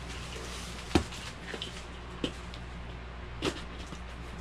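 A cardboard box being handled and opened by hand: a few scattered knocks and rustles of cardboard, the sharpest knock about a second in, over a steady low hum.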